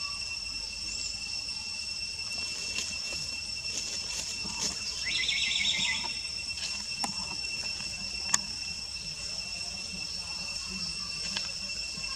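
Steady high-pitched insect chorus made of several constant tones. A brief pulsed call rises out of it about five seconds in, and a single sharp click comes a few seconds later.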